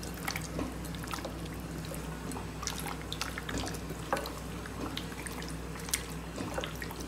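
Hands mixing fish steaks with thick, wet masala paste in a glass bowl: irregular soft squelches and small clicks of fingers and fish against the glass, over a low steady hum.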